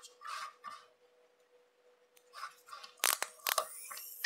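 Small metal hand tools worked on a watch movement: soft scrapes and light handling, then a few sharp clicks about three seconds in, over a faint steady hum.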